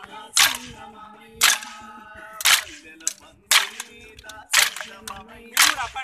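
Kolatam stick dance: many dancers strike their wooden sticks together in unison, a sharp clack about once a second, six times, while a folk melody is sung between the strikes.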